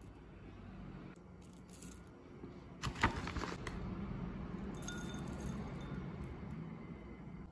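Chopped green onion and shredded cheese dropping into a ceramic bowl: scattered light taps at first, then a louder cluster of taps and rustling about three seconds in, settling into soft rustle.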